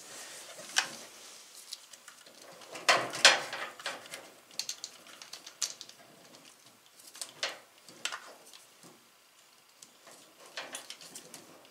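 Plastic wire-harness plugs and wires on a washing machine's control board being handled and pushed into place: scattered small clicks and rustles, the loudest cluster about three seconds in.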